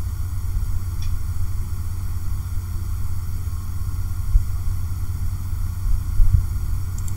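Steady low background hum and rumble with no speech.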